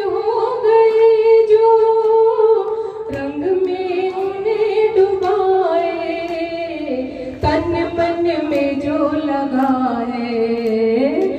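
A woman singing a Hindi devotional bhajan in long, drawn-out notes that glide from pitch to pitch, with an electronic keyboard accompanying her.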